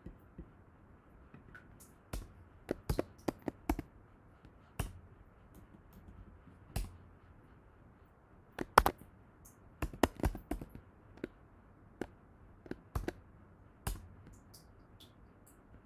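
Computer keyboard keys clicking in irregular bursts as code is typed, over a faint steady hiss.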